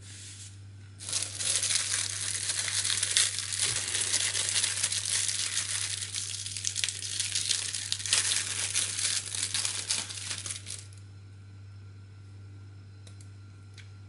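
Thin clear plastic packaging bag crinkling as it is pulled and torn open by hand: a dense rustle lasting about ten seconds that stops suddenly, followed by a couple of light clicks near the end.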